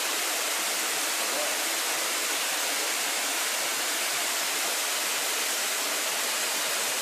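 Steady rushing of a desert canyon waterfall, even white-noise-like water sound heard close to the falls.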